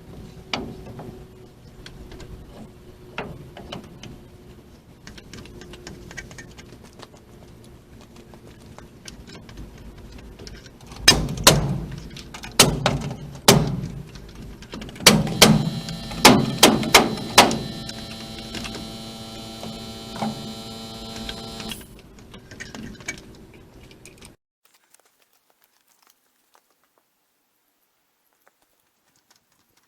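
Knocks and bangs from building work: faint scattered knocks at first, then two clusters of loud sharp strikes, with a ringing tone hanging on after the later ones. The sound then cuts off to silence.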